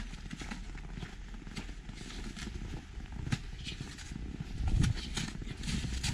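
Footsteps crunching on packed snow at a steady walking pace, about two steps a second, over a low rumble that swells briefly about five seconds in.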